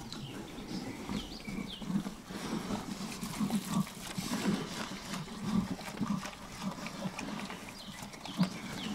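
Pigs grunting as they feed at a trough, short low grunts coming several times a second.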